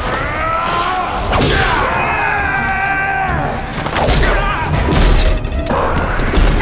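Action-film fight soundtrack: a loud music score over a deep rumble, with heavy thuds of punches and kicks landing.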